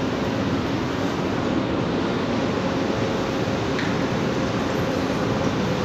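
CSR-built metro train standing at the platform, its motor and equipment running with a loud, steady whir and a faint steady tone. There is a single click about four seconds in.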